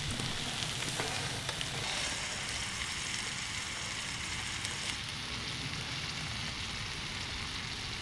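Meat sizzling in a pan over a campfire: a steady frying hiss with a few small clicks.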